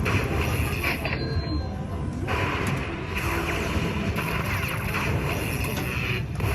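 Lightning Link slot machine spinning, with its electronic game music and reel sound effects over steady casino noise.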